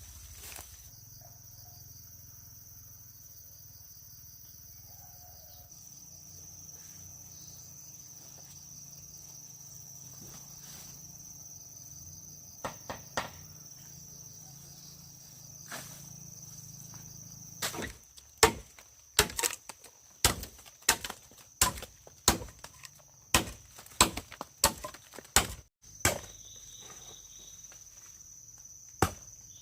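Insects, likely cicadas or crickets, keep up a steady high-pitched whine. About two-thirds of the way in comes a run of about fifteen sharp knocks, roughly two a second, like a blade or tool striking wood or cane.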